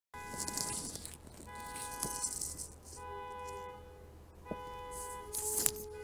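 Car alarm sounding, cycling through held electronic tones of about three-quarters of a second each, the pitch changing from one tone to the next. A few sharp clicks are heard over it.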